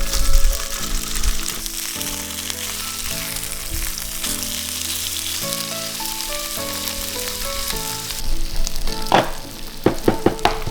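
Food frying on an electric hot plate, a steady sizzle, with a few sharp clacks near the end.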